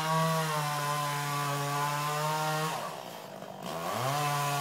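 Two-stroke chainsaw running at high revs. About three seconds in its pitch drops and it goes quieter for under a second, then it revs back up.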